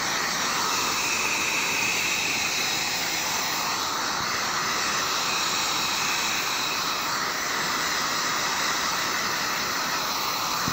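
Handheld electric heat gun running steadily, an even airy hiss of its fan and blown hot air.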